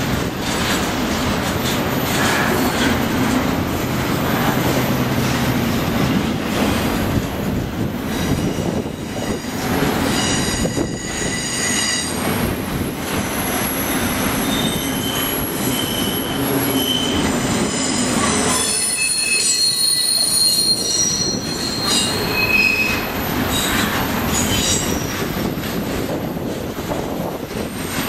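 A BNSF double-stack intermodal freight train's well cars rolling past with a steady rumble and clatter. From about a quarter of the way in until near the end, high-pitched steel wheel squeal rings over it in several tones.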